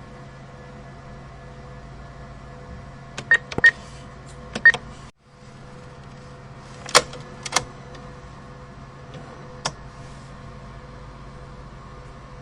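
ATM cash machine: a steady mechanical hum with a cluster of short, sharp clicks and beeps about three to five seconds in, the sound cutting out for an instant, then more clacks around seven seconds and a single one near ten.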